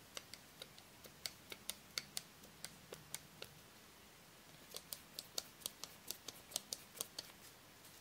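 Small screwdriver turning a screw into the diecast metal baseplate of a Matchbox toy car: a run of sharp little clicks, several a second, with a pause of about a second midway.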